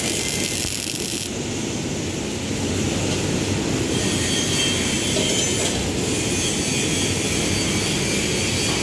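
Steady hiss of electric arc welding, a continuous even noise with no pitch to it.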